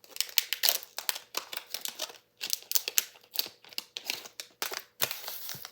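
Foil hockey-card pack wrapper crinkling and cards being handled: a quick, irregular run of rustles and taps that cuts off suddenly near the end.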